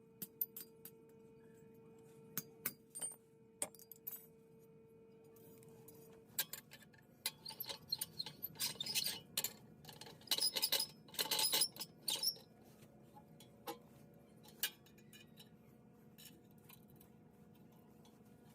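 Light metallic clinks and taps of steel pieces being handled and knocked together, a few at first, then a dense run of them in the middle, thinning out toward the end.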